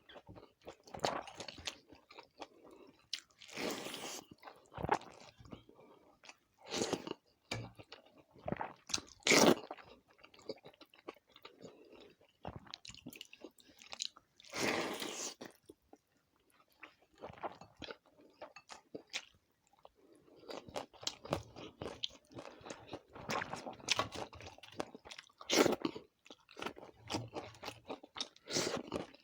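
Close-miked eating: a person chewing and crunching crisp food in irregular bites, with a few louder crunches, among them a long one about 15 seconds in.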